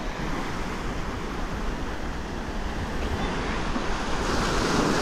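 Small waves washing onto the shore of a calm sea, with wind on the microphone; the wash grows louder about four seconds in.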